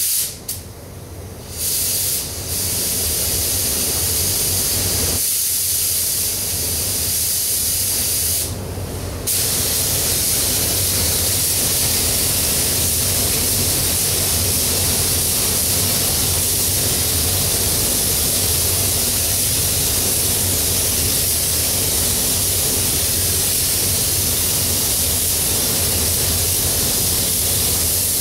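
Gravity-feed paint spray gun hissing with compressed air as a coat of sealer primer goes on, over a low steady hum. The hiss dips briefly about a second in and again around nine seconds, then runs on without a break.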